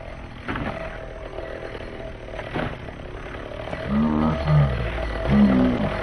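Small nitro engine of an RC monster truck running, with a couple of knocks early on, then revved twice near the end, its pitch rising and falling with each throttle blip.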